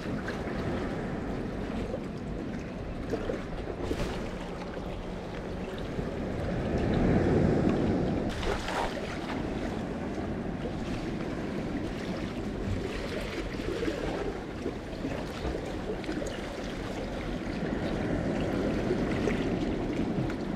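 Small sea waves washing and sloshing among concrete breakwater blocks, with some wind on the microphone. The wash swells louder about seven seconds in and again near the end.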